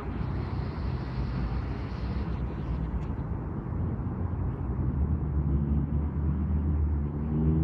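Light-rail train heard from inside the car, a steady low rumble of the car running on the track. About five seconds in, an electric motor whine rises in pitch and grows louder as the train picks up speed.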